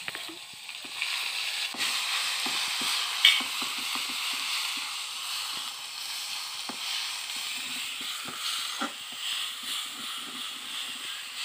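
Tempering: panch phoron, bay leaf, garlic and black pepper sizzling in hot oil in a metal kadhai, with a metal ladle scraping and clinking against the pan as they are stirred. A sharp metallic clink about three seconds in is the loudest sound.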